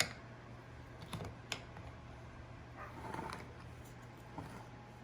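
A utensil tapping and scraping against a cake mold while batter is swirled to marble it: a few sharp clicks and a soft scrape about three seconds in.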